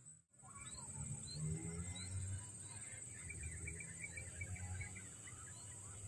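Field ambience: small birds chirping in quick, scattered series, densest in the middle, over a steady high insect drone and a low rumble.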